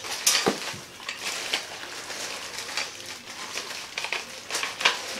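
Thin clear plastic bag crinkling and rustling as it is handled around a speaker, with irregular sharp crackles throughout.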